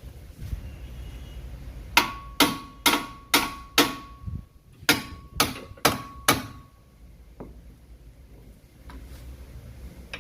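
Hammer striking the steel lower control arm of a 2019 Hyundai Elantra to knock it down and free it. There are nine sharp metallic blows in two quick runs, five then four, with a ringing tone that carries on between the strikes.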